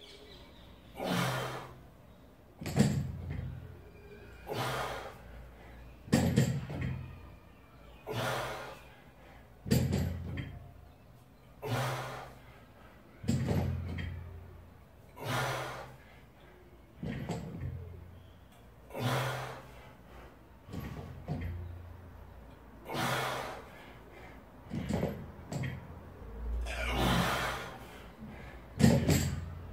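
Barbell loaded with 108 kg of bumper plates set down on rubber gym flooring rep after rep during a set of sumo deadlifts, each touchdown a heavy thud. Each thud alternates with the lifter's loud breath, in a steady cycle of about one rep every three and a half seconds.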